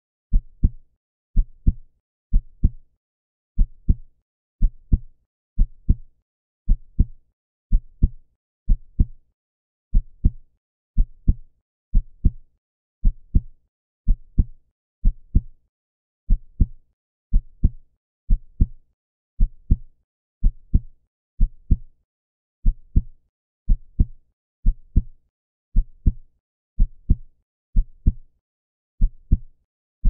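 Heartbeat sound effect at a normal, steady heart rhythm. Each beat is a low double thump (lub-dub), repeating about once a second.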